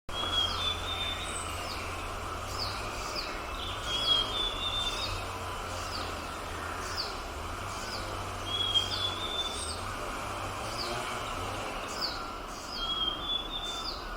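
Forest birds calling: many short high notes that drop in pitch, and every few seconds a brief lower phrase, over a steady low hum.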